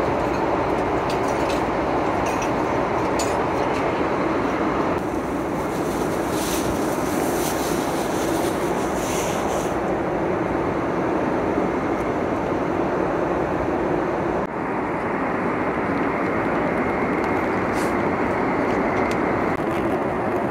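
Steady cabin noise of a Boeing 777 in cruise: engine and airflow noise inside the passenger cabin. Faint handling noises come in partway through.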